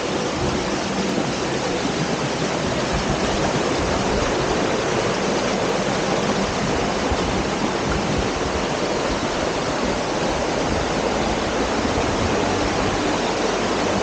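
Rocky stream rushing and splashing over small cascades: a steady, even rush of water.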